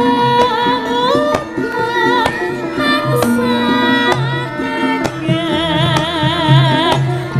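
A sinden, a female Javanese singer, sings with a wide, wavering vibrato over gamelan accompaniment with regular hand-drum strokes.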